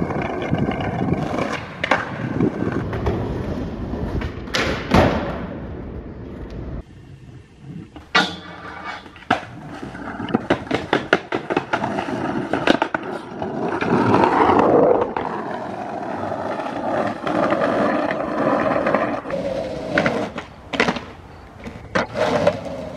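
Skateboard wheels rolling over concrete and paving, broken by many sharp clacks of tail pops, landings and the board slapping the ground, the loudest about five seconds in.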